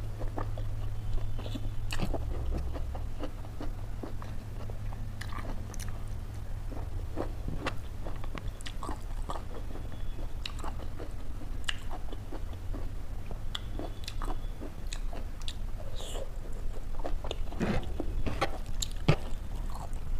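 A person chewing and eating with their fingers: many short, irregular mouth clicks and chewing sounds, over a steady low hum.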